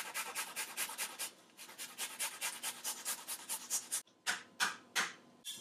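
Garlic clove being grated on a long metal rasp grater: quick rhythmic scraping strokes, about seven a second, then a short pause and a few slower single strokes near the end.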